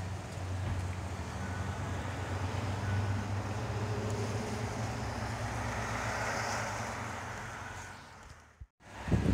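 Wind buffeting the microphone: a steady rushing with a low rumble. It fades out about eight seconds in, then a short, louder burst of rumble follows near the end.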